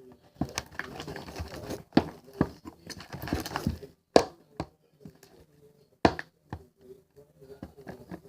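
Glue slime being stirred in a container as contact-solution activator is mixed in: a utensil scraping and clicking irregularly against the container, with a few sharp knocks standing out.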